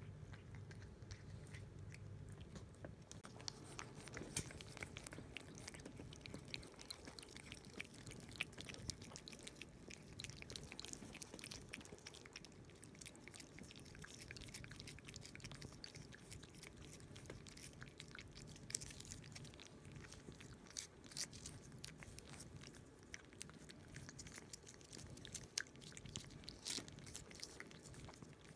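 Cats licking paste from a squeeze-tube treat held out by hand: faint, quick, irregular wet smacking and clicking of tongues.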